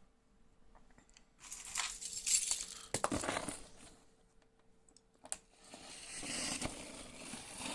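A large cardboard shipping box being opened by hand: two bursts of scraping and tearing at the packing tape, with a sharp click between them.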